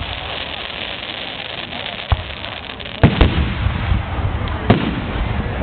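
Aerial fireworks shells bursting: a sharp bang about two seconds in, two louder booms close together about three seconds in, then another bang near the end.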